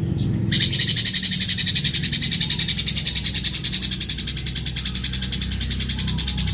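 A lovebird giving a long, harsh, very rapid chattering trill with a rough, raspy voice, starting about half a second in, over a low hum.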